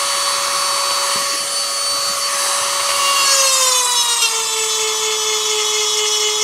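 A small handheld rotary tool with a diamond grinding bit whines steadily as it grinds a chainsaw chain cutter tooth, with a rasping hiss. About three seconds in, the whine drops in pitch and stays lower.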